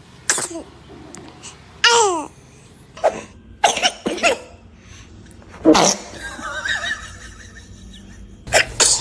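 A newborn baby's short sneezes and small squeaky noises, a series of brief bursts with the loudest nearly six seconds in, mixed with laughter.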